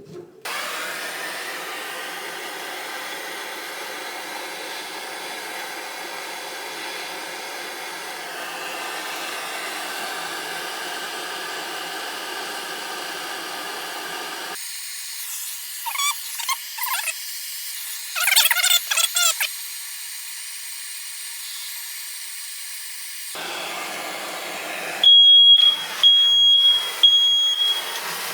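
Soldering torch hissing steadily as copper pipe fittings are heated. Near the end a smoke alarm starts beeping, a short high beep repeated about once a second.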